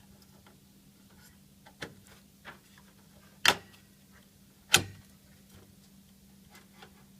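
Hard plastic-and-metal clicks of a graphics card being fitted into a computer case's expansion slot: a few light taps, then two sharp, loud clacks about a second apart as the card is pushed home.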